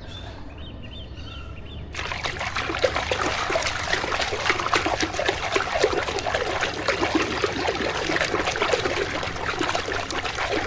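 Water running and splattering as a muddy toy is rinsed, starting suddenly about two seconds in and continuing steadily with many small drips and splashes.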